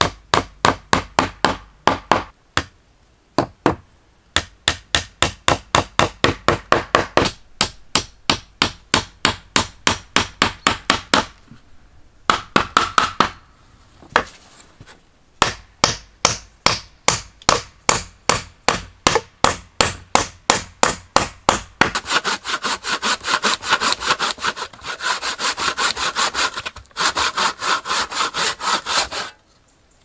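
Hand tools working timber boards: runs of quick, even strokes broken by short pauses, then a longer unbroken stretch of hand-sawing through wood near the end.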